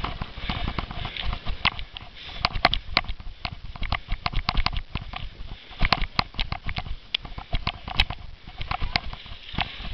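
Cyclo-cross bike rattling over bumpy grass: irregular clicks and knocks from the chain and frame over a low rumble from the tyres on rough ground.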